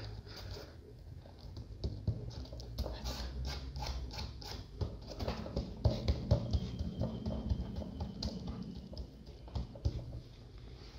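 Irregular scratching and light knocks of sheets of 60-grit sandpaper being laid, pressed and rubbed down onto a contact-cemented melamine board.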